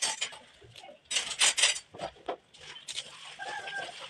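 Chickens clucking close by, in short bursts about a second in and again later, over the rustle of drumstick leaves being handled in a steel bowl.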